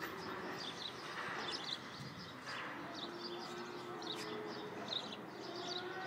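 Small birds chirping many times in quick succession over outdoor background noise, with a faint steady low hum from about halfway in.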